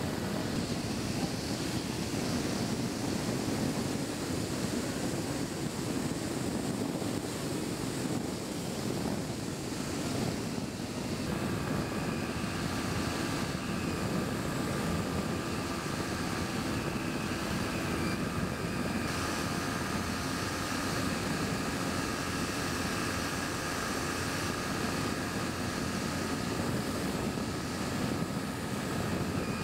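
Skywalker flying wing RC plane in flight, heard from its onboard GoPro: a steady rush of wind over the camera with the drone of the plane's motor and propeller. About eleven seconds in, a higher steady motor whine comes in and holds.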